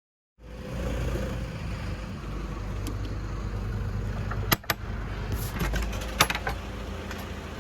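Steady low rumble of a running motor vehicle, with a few sharp clicks about halfway through.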